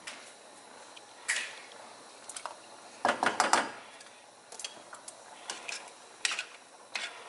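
A metal utensil clinking and knocking against a stainless steel saucepan. Single knocks are scattered through, with a quick cluster of clatter about three seconds in.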